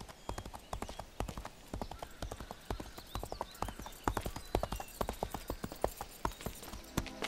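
Horses' hooves clip-clopping at a walk, several horses with their footfalls overlapping in an uneven patter of knocks.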